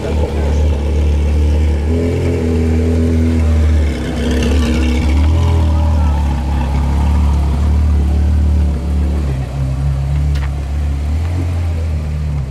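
Porsche Carrera GT's straight-piped 5.7-litre V10 running at low speed, a deep, steady exhaust note as the car rolls by.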